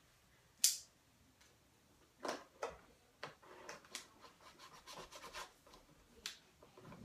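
Packing tape on a cardboard box being slit and scraped open in short scratchy strokes, with one sharp click a little over half a second in.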